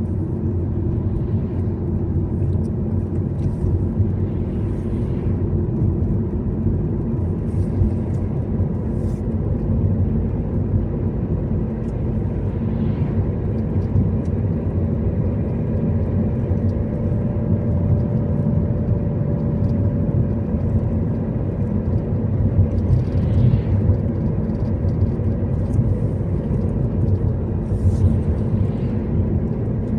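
A car driving along a road: a steady low rumble of engine and road noise, unchanging throughout.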